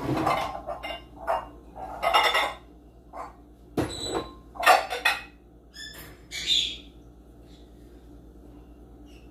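Pet birds calling noisily in a string of short calls over the first seven seconds, with a single sharp knock about four seconds in.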